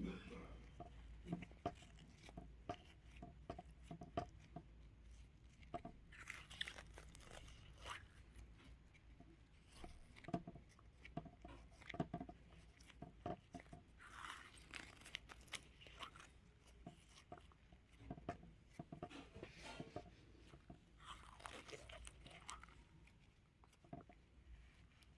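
Faint crunching and crackling of bead-filled slime being squeezed and pressed by hand: many small clicks and pops, with a few softer swishing squishes a few seconds apart.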